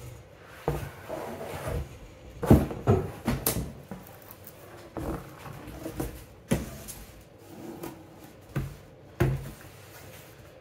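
Cardboard box and packing being handled as a digital air fryer is lifted out of it: rustling and scraping with several sharp knocks and thuds, the loudest about two and a half seconds in.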